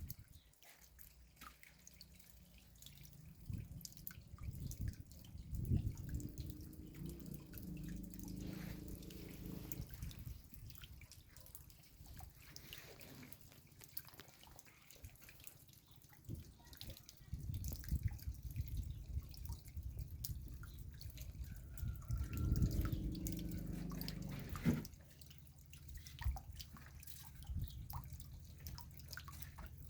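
Raindrops dripping in irregular separate drops, with a low rumbling noise swelling twice.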